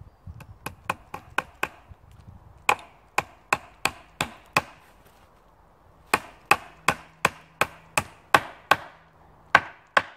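Axe used as a hammer to drive nails into a round wooden slab tabletop: sharp strikes about three a second, in four runs with short pauses between.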